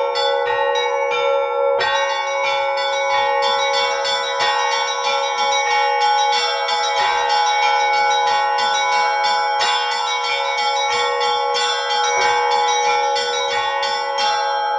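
A set of seven church bells, the largest about 140 kg, rung as a Russian-style peal. Small bells are struck in a rapid, dense pattern over ringing tones, while a deeper bell sounds about every two and a half seconds.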